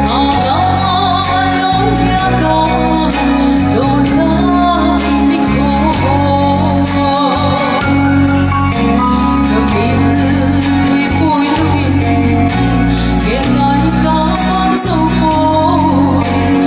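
A woman singing a song live into a handheld microphone over an instrumental backing with held bass notes and a steady beat.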